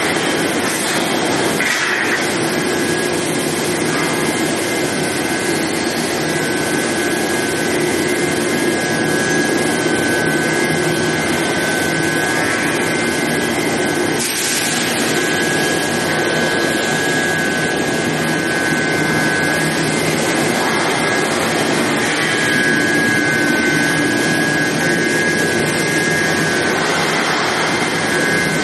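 Steady, loud machinery noise from an induction hardening and tempering line for drill pipe: a constant rushing hum with a steady high-pitched whine held on top, and a short burst of hiss about halfway through.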